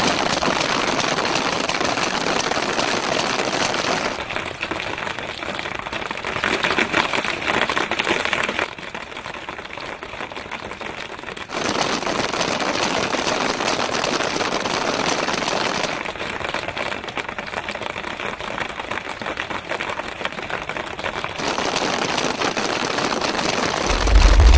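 Paintball markers firing in rapid, continuous volleys: a dense rattle of shots and paintballs splatting on the board. It shifts abruptly in loudness every few seconds.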